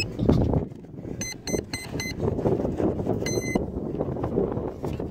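Electric speed controller of a model plane beeping after its 4S LiPo battery is plugged in: four short beeps, then one longer beep as it arms. Wind rumbles on the microphone underneath.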